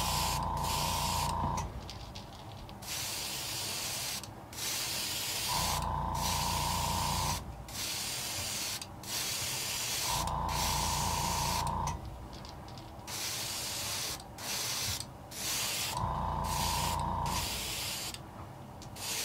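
Airbrush spraying paint onto a fishing lure in many short hissing passes, broken by brief pauses. A small motor's hum with a steady whine comes in four times for a second or two.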